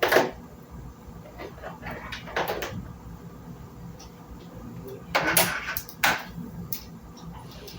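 Scattered knocks and clatters from handling wiring parts and hardware while hooking up a turn-signal circuit, loudest twice about a second apart near the end, with faint voices in the room.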